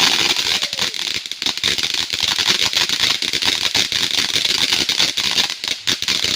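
A firework going off with a dense, rapid run of crackles over a steady hiss.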